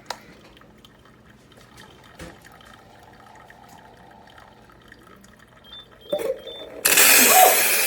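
Instant Solo single-serve pod coffee maker starting to brew: a few faint clicks, then a couple of knocks about six seconds in, then a loud, steady rushing hiss as hot water spurts out into the cup.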